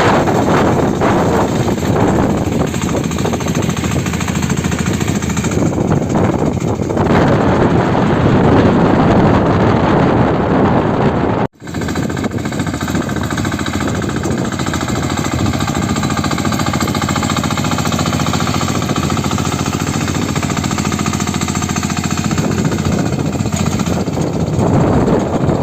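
Engine of a sanedo, a homemade farm vehicle, running with a rapid, even beat while sowing. The sound breaks off for an instant about halfway through, then carries on.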